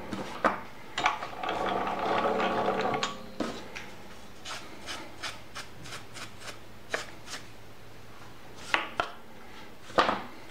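Small metal lathe's carriage and toolpost being wound in by hand toward the work. Metal slides and handwheel rub and click, with a low hum in the first few seconds. A run of light ticks about three a second follows, and a few sharper knocks come near the end.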